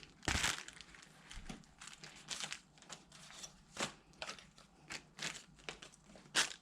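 Plastic and paper packaging crinkling and rustling in irregular bursts as it is handled and set aside.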